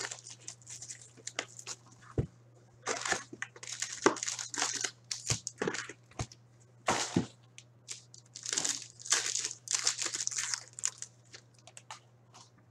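Hockey card packs being torn open and the cards handled: irregular crinkling and tearing of wrappers in quick, uneven bursts.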